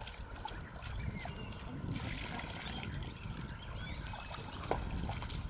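Water trickling and splashing as muddy shoes are washed, with scattered small knocks and clicks.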